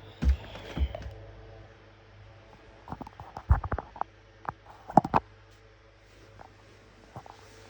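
Scattered light knocks and clicks, a cluster of them in the middle, over a steady low hum.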